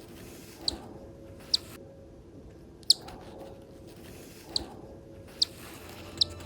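Cockatiel chick peeping: six short, sharp, high-pitched peeps at irregular intervals, roughly one a second.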